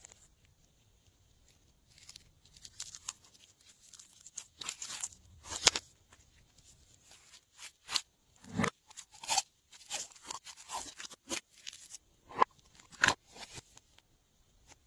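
Glossy slime being worked by hand, giving irregular sticky clicks, crackles and squelches. It starts about two seconds in, with the loudest snaps around the middle and near the end.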